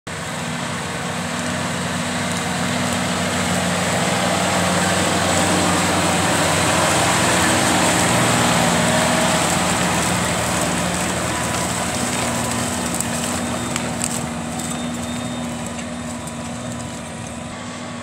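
John Deere 6250R tractor's six-cylinder diesel engine running steadily under load as it pulls a six-furrow reversible plough through the soil. It grows louder as the tractor passes close, about halfway through, then fades as it draws away.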